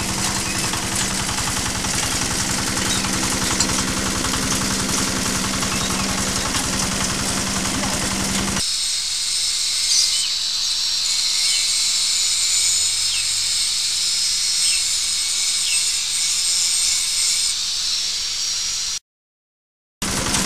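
Small stationary engine driving a straw and coconut-frond chopper, running steadily with a fast, even pulsing beat. After a cut about nine seconds in, a steady high hiss with almost no low end takes over, then there is about a second of silence before the engine sound comes back near the end.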